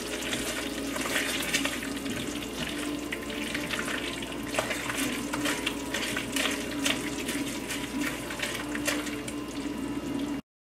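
A spatula stirring and scraping thick tomato sauce around a stainless steel pot: wet squelching and sloshing with frequent small scrapes and clicks against the metal, over a faint steady hum. The sound cuts out abruptly just before the end.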